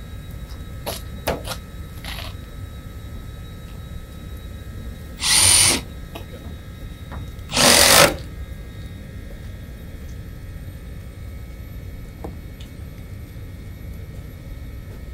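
Power drill run in two short bursts, each under a second and about two seconds apart, with a few light clicks before them over a steady low rumble.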